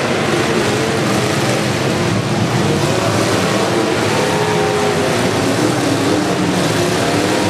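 Several demolition derby cars' engines revving together in a dense, overlapping din, their pitches rising and falling as the cars push against one another.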